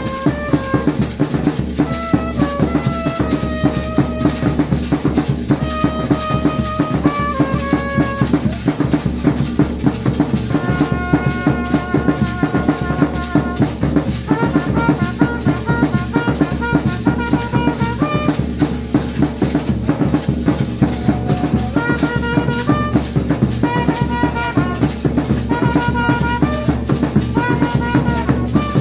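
Live drum-and-brass band: several large double-headed drums beaten with sticks in a steady, driving rhythm, with a trumpet melody played in phrases, pausing briefly now and then while the drums keep going.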